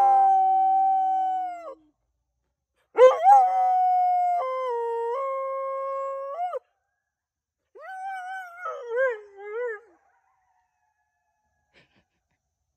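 A dog howling with its muzzle raised, answering coyotes: a long howl that slides down in pitch and ends about two seconds in, a second long howl from about three seconds in that steps up and down before breaking off, and a shorter, wavering howl near the eight-second mark.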